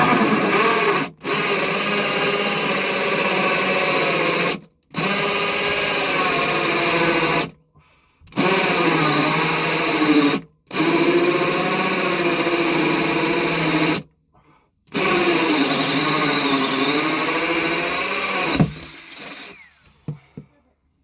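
Power drill cutting a hole into the boat with a hole saw, running in six bursts with short stops between, the motor's pitch dipping and recovering as it loads up in the cut.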